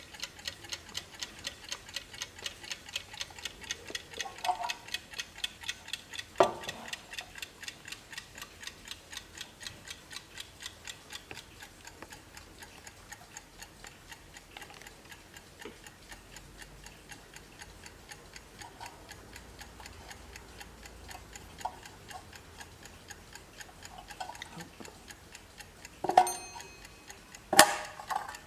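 Vintage 1950s Wehrle wall clock's wind-up clockwork ticking steadily, a few ticks a second. There is a single knock about six seconds in and two louder knocks near the end.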